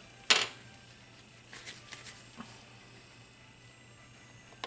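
A sharp plastic click as a small mica sample container is opened, followed by a few faint light clicks and taps.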